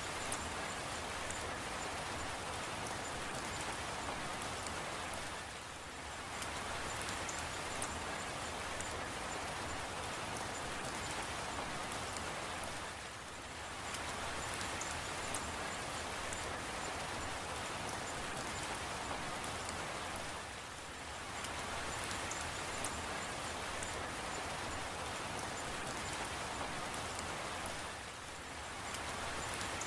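Steady rain falling, with fine drops pattering on a surface. It eases briefly about every seven and a half seconds, four times.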